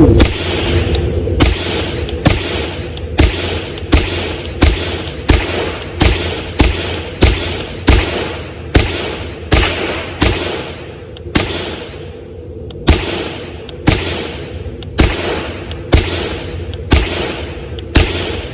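Shots from an AR-15 fitted with a CMMG Bravo .22 LR conversion kit: a string of about twenty single semi-automatic shots, roughly one a second or a little faster. Each shot has a short ringing tail, and the kit keeps cycling through the string.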